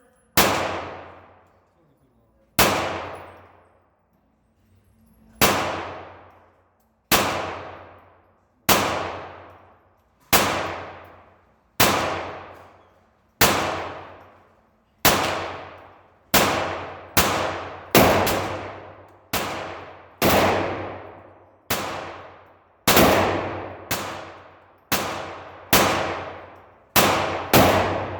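Kel-Tec CP33 .22 LR pistol firing single shots, each sharp crack trailing off in a long ring. About two dozen shots, spaced a couple of seconds apart at first and coming faster, under a second apart, in the second half.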